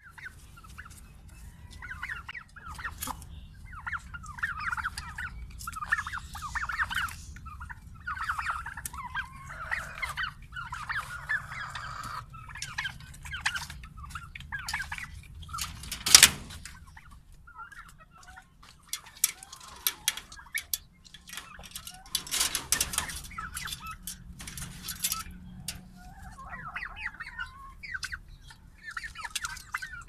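Domestic turkeys clucking and calling in repeated short bouts. A single sharp knock sounds about halfway through, the loudest thing here, and a brief noisy rustle follows a few seconds later.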